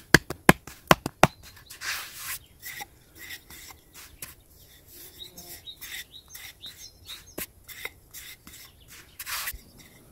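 Hands patting and slapping bread dough on a floured wooden board, with several sharp slaps in the first second and a half, then a thin wooden rolling pin tapping and rolling on the board. Small birds chirp through it.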